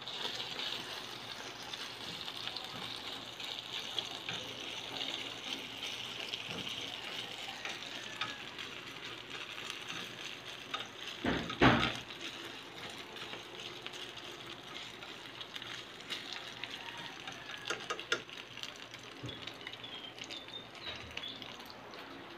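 Strips of meat in sauce sizzling in a frying pan, a steady hiss, with one loud brief bump about halfway through.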